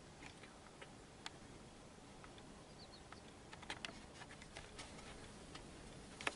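Faint, irregular small clicks and ticks over a quiet background hiss, with a cluster in the middle and one sharper click near the end.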